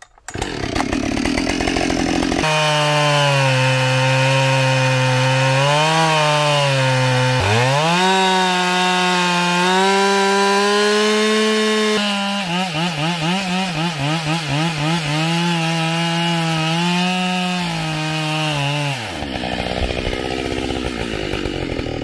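Husqvarna 572XP two-stroke chainsaw with a 28-inch bar and ripping chain running at full throttle, buried in a log and ripping lengthwise along the grain. The engine pitch sags and recovers about seven seconds in, wavers up and down under load in the second half, then drops off near the end as the throttle is released.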